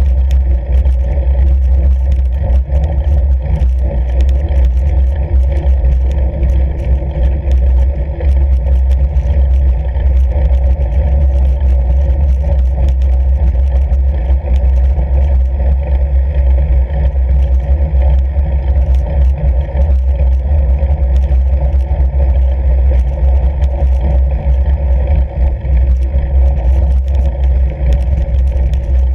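Fat bike ridden over packed snow on a frozen lake: a loud, steady low rumble of the wide tyres rolling, with faint crackling ticks throughout.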